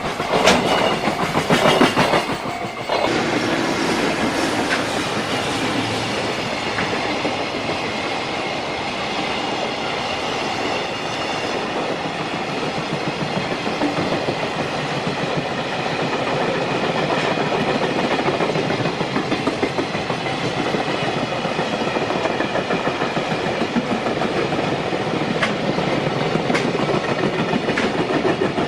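JR Freight train running past on the rails, a long string of wagons going by with a continuous rumble and clatter of wheels. Sharper, louder knocks come in the first three seconds, then it settles into an even run.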